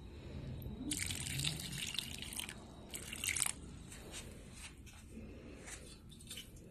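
Water being poured onto a potted plant's dry soil, splashing in two short spells and then dripping and trickling.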